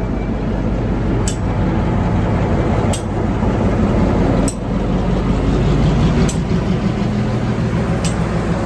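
LIRR MP15AC diesel switcher locomotive's engine running with a steady, loud drone. Sharp clicks come about every one and a half to two seconds, five times in all.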